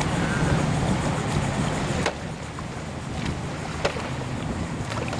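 Stand-up paddleboard being propelled with a pair of pole paddles through calm water, with a few sharp knocks. A steady low hum drops away about two seconds in.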